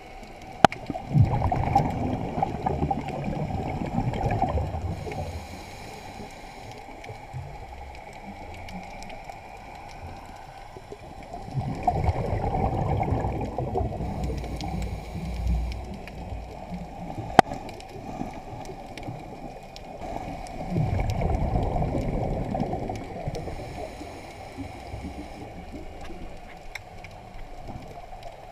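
Underwater scuba diver's regulator breathing: three gurgling surges of exhaled bubbles about nine seconds apart, over a steady low hiss, with a few sharp clicks.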